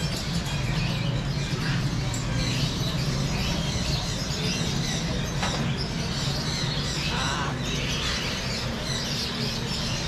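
Caged shop birds chirping and squawking in scattered short calls over a steady low hum.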